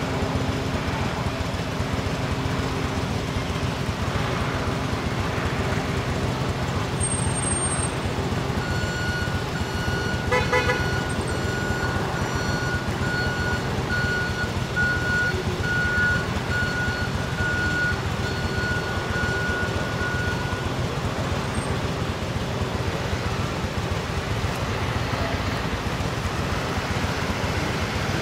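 Air ambulance helicopter running on the ground, its turbine engines and rotor giving a steady loud rumble. In the middle a high steady tone, a little broken, sounds for about twelve seconds.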